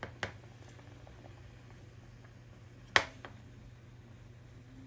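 Metal slotted spatula clacking against a frying pan while turning sausages: two sharp clicks, a small one just after the start and a louder one about three seconds in, over a low steady hum.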